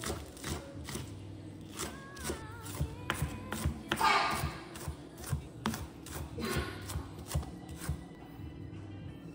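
Background music with a steady beat and a sung melody, with light kitchen knocks and taps and a brief rustling noise about four seconds in.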